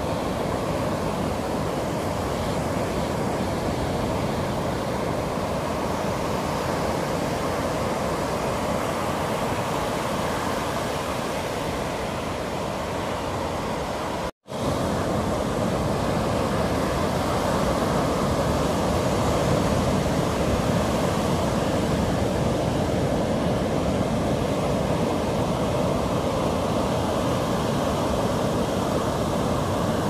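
Atlantic surf breaking and washing up a sandy beach: a steady rushing wash of waves. The sound cuts out for an instant about halfway through.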